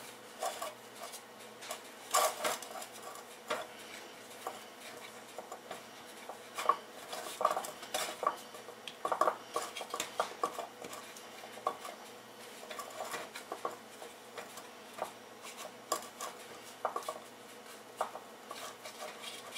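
Metal muffin tin being handled, giving light, irregular clinks and taps as biscuit dough is pressed into one of its cups.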